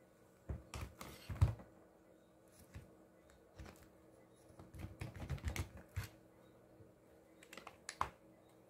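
Hard plastic and metal clicks and knocks as the Milwaukee M18 drill's motor and gearbox assembly is handled and seated in its housing half: a cluster about a second in, a busier run around five to six seconds, and a couple more near the end.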